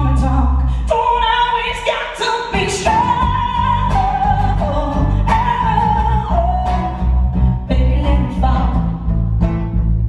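Live band music: a woman singing long held notes over strummed acoustic guitar, electric guitar and a strong low bass.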